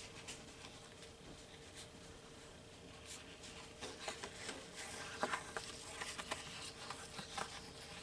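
Paper being handled on a craft table: soft rustles and light taps, busier from about three seconds in, over a faint steady hum.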